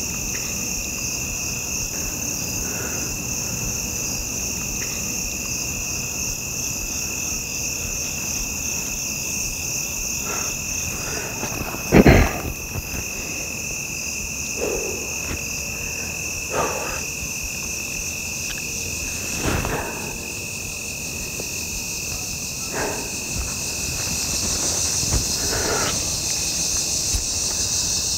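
Evening chorus of crickets and other insects trilling steadily, with a sharp knock about twelve seconds in and a few softer rustles.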